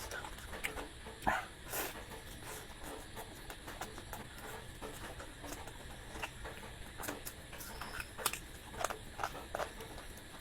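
Close-miked eating sounds: a person chewing and smacking food, with irregular wet clicks and smacks, a few sharper than the rest.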